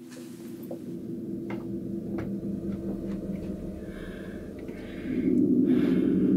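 Low ambient drone from the film's sound design: a steady low hum that swells, getting louder about five seconds in. Scattered faint clicks and a breathy hiss sit over it.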